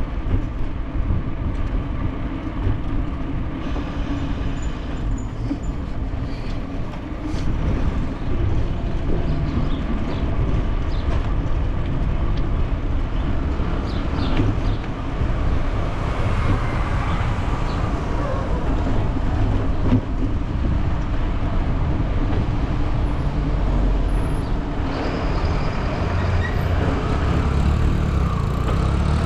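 Wind buffeting and road rumble on a bicycle-mounted camera riding along a paved street, a steady fluttering low rumble that swells in places. It gets somewhat louder near the end.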